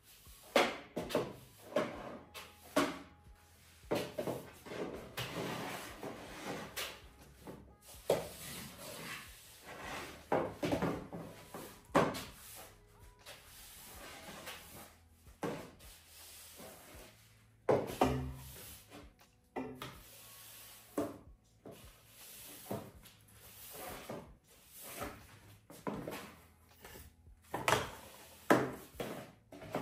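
Floor mopping: a flat mop and its handle scraping, rubbing and knocking irregularly on a wood-effect floor, with a heavier thump a little past halfway.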